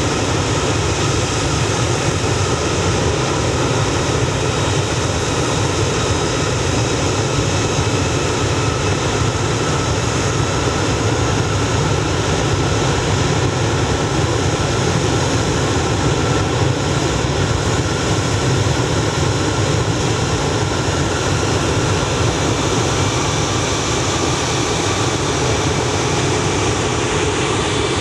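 Airbus A340-600's Rolls-Royce Trent 500 turbofan engines running during a ground engine run-up: a steady, loud rushing noise with several high, steady whining tones over it.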